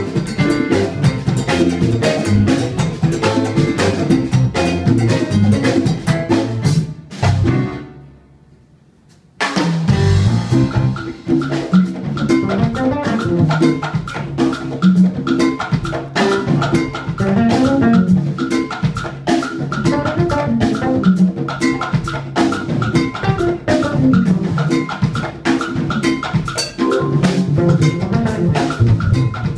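A live Latin jazz band playing, with drum kit, bass and piano in a dense, driving groove. About seven and a half seconds in, the band breaks off to almost nothing, then comes back in together with a hit a little over nine seconds in.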